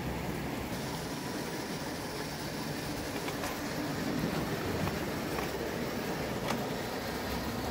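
Antique Carette tinplate hot-air (Stirling) engine running: a steady mechanical running noise with a few light clicks.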